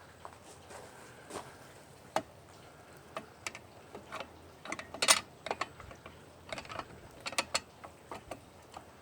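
Irregular sharp clicks and light knocks, a few a second, with the loudest knock about five seconds in.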